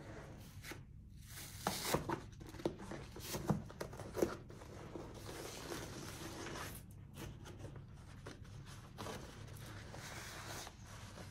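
Protective packaging being torn and pulled off a new iMac. A run of sharp crackles and knocks comes in the first few seconds, then softer rustling.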